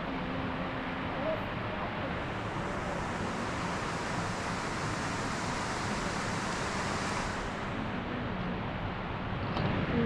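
Steady outdoor rushing noise with no distinct events, growing hissier for a few seconds in the middle.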